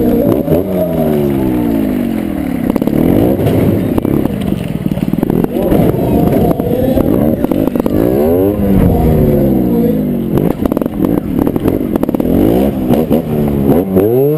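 Motorcycle engine heard close up from a handlebar-mounted camera, repeatedly revving up and dropping back as the rider opens and closes the throttle.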